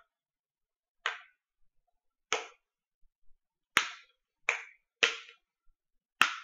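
Six separate sharp crackles from a thin plastic water bottle, cut down into a funnel, flexing as it is gripped and handled.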